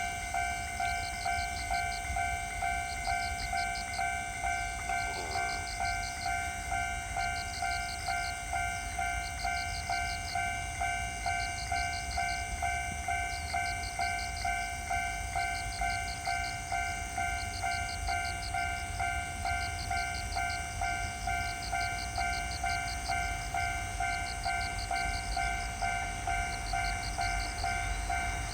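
Japanese railroad crossing warning bell ringing its 'kan-kan' alarm, a pitched ding repeating in a steady, even rhythm.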